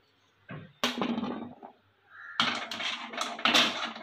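A metal mesh strainer knocking and scraping against a steel pot as blanched cauliflower florets are lifted out of the hot water and tipped onto a plate. The clatter comes in two bursts about a second and a half apart, the second longer and louder.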